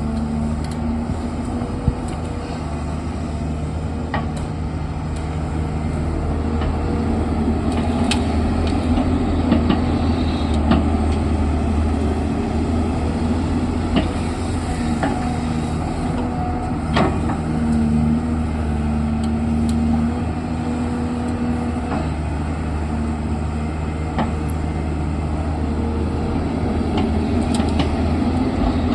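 Diesel engine of an earthmoving machine running steadily at working revs, with scattered sharp knocks from the digging.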